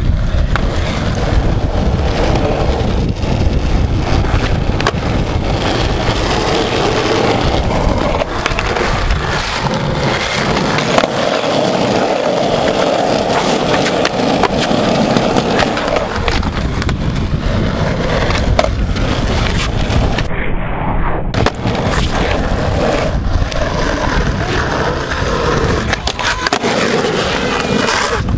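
Skateboard wheels rolling over concrete, with frequent clacks and knocks as the board pops, lands and grinds on ledges.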